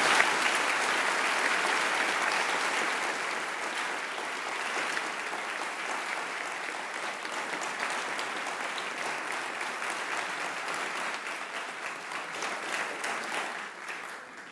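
Congregation applauding: dense clapping that is loudest at first and slowly thins out, then cuts off suddenly at the end.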